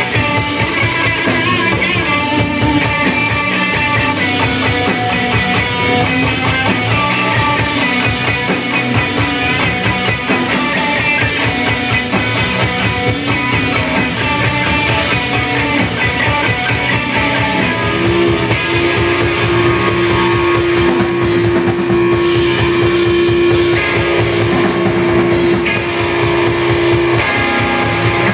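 Sludge metal band playing live on electric guitar, bass guitar and drum kit. About two-thirds of the way in, a long held note sounds over the drums for several seconds.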